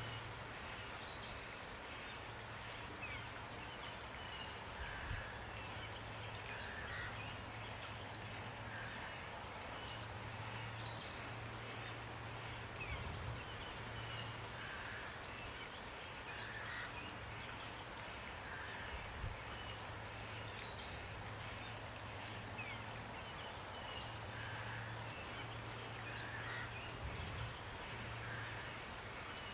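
Songbirds chirping in clusters of quick, high, falling notes over a steady rain hiss, with a low steady hum underneath.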